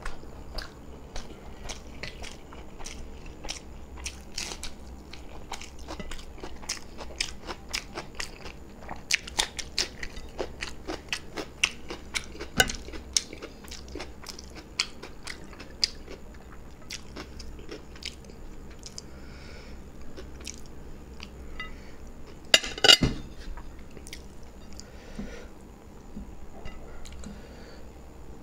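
Close-miked eating of beef biryani by hand: chewing with a rapid run of small wet clicks, busiest in the middle, and one short louder burst of clicks about three-quarters of the way in.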